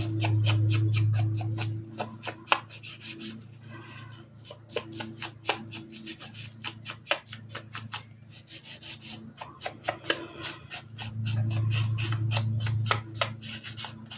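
A small ink pad rubbed and dabbed along the edges of a paper card, making quick, irregular scratchy strokes. A low steady hum sits under it at the start and again about eleven seconds in.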